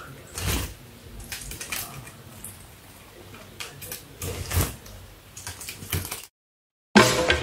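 Water running from a kitchen tap onto a wet sink drainboard, with a white-bellied caique's feet knocking and splashing on it: a handful of sharp knocks, the loudest about half a second and four and a half seconds in. It cuts off a little after six seconds, and music with drums starts near the end.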